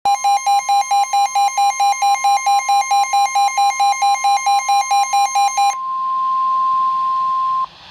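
Weather-alert tones: a fast electronic beeping, about four beeps a second, sounds over a steady high warning tone, the NOAA Weather Radio 1050 Hz alarm that signals a warning. The beeping stops a little before six seconds in, and the steady tone carries on alone until it cuts off suddenly near the end.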